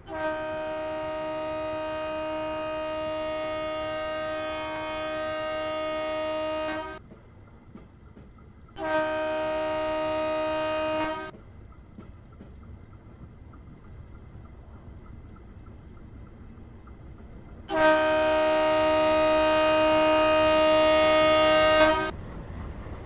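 Train horn sounding three long blasts, the first about seven seconds long, a shorter one near the middle and a third of about four seconds near the end, each a steady multi-note chord. A steady low rumble of a moving train runs underneath.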